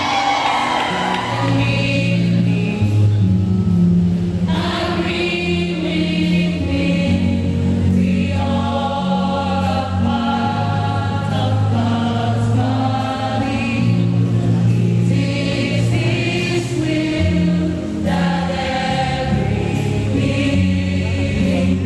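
Church choir singing a gospel song, with voices held on long notes over a steady low line.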